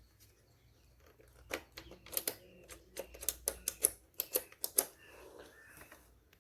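Irregular sharp plastic clicks and taps, about a dozen over three seconds, from handling a mini sewing machine while plugging in its power supply, then faint rustling.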